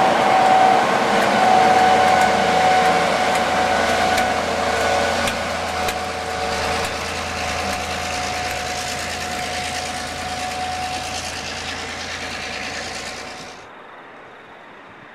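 Train propelled by a DC-class diesel-electric locomotive pulling away along a platform: the diesel engine runs with a steady high whine over the noise of the moving train, fading gradually as it draws away. About 13.5 seconds in the sound drops abruptly to faint outdoor background.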